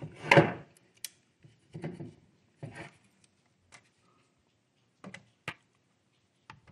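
Handling noise: a short louder rustle at the start, then scattered soft clicks and rustles about a second apart, with quiet gaps between.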